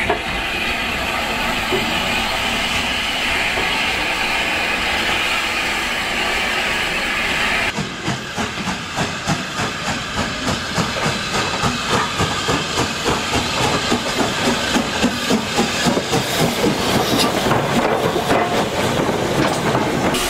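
Southern Railway S15 4-6-0 steam locomotive No. 825: first a steady hiss of escaping steam, then its exhaust chuffing in an even beat of about three a second, growing louder.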